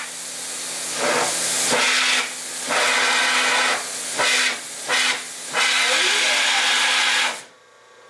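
RhinoSpray 1500A heavy-duty pressure washer spraying a water jet onto a screen-printing screen: a loud, even hiss of water with a steady pump hum beneath. It swells and dips as the jet sweeps, then cuts off about seven seconds in when the spraying stops.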